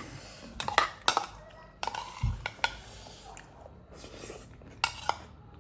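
A spoon clinking and scraping against a dish, with sharp clinks scattered through, as leftover puris and potato are mashed into the pani.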